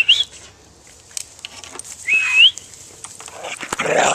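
A person whistling to call a dog: two short rising whistles about two seconds apart. Near the end a louder scuffling noise starts as the dog comes close.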